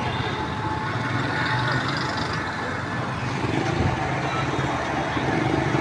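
Steady road-vehicle noise, an even sound without breaks or sharp events.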